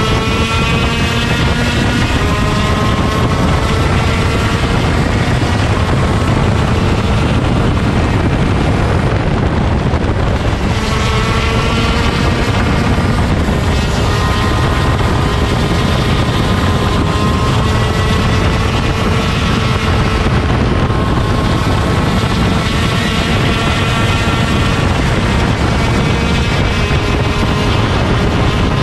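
125cc two-stroke shifter kart engine running at racing revs, its pitch climbing steadily and then dropping back sharply three times as it shifts or comes off the throttle, over a heavy low rush of wind and road noise.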